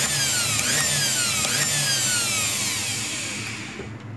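Brushed motor of an electric hand planer, fitted with a small chuck, running at very high speed on power from a homemade 60 Hz DC-to-AC inverter and giving a high whine. Its pitch slides down, jumps back up twice in the first two seconds, then winds down and fades near the end.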